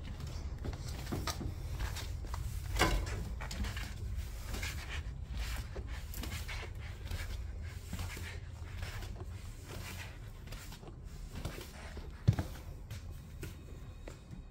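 Footsteps going down a staircase: soft thuds every half second or so over a low rumble, with two louder thumps, one about three seconds in and one near the end.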